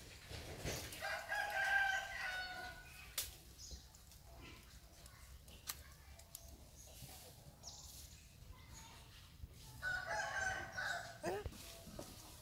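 Two drawn-out animal calls, about eight seconds apart, each lasting about a second and a half. The second call ends in a falling note.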